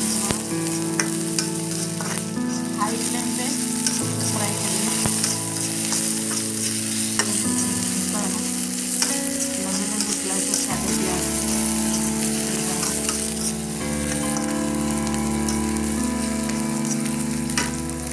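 Sliced onions and green chillies sizzling in hot oil in an iron kadhai, stirred with a metal slotted spoon that clicks and scrapes against the pan now and then. The onions are being sautéed until soft.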